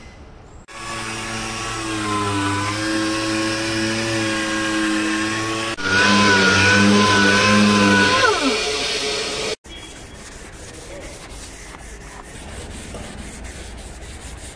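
Pneumatic random-orbital sander sanding dried body filler on a car's rear bumper, running with a steady whine that grows louder about six seconds in, then winding down with a falling pitch a little after eight seconds. It cuts off, and softer rubbing follows.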